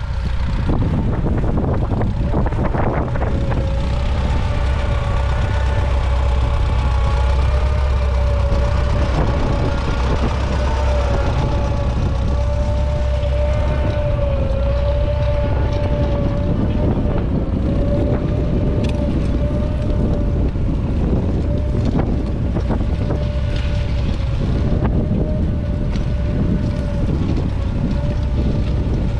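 1942 McCormick-Deering International Harvester W-4 tractor's 2.5-litre four-cylinder engine running steadily under load, pulling a two-furrow trailed plough, with a steady whine over the engine note.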